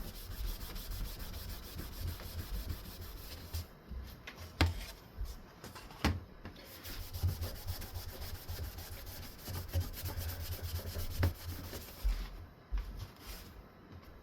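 A cleaning wipe being scrubbed over a wood-veneer ceiling fan blade, an uneven rubbing that comes and goes, with three sharp clicks along the way.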